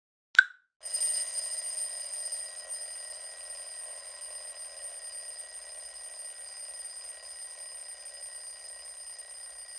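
A countdown timer's last one-second click, then its end alarm starts ringing steadily, loudest at first and then settling, signalling that the timer has reached zero.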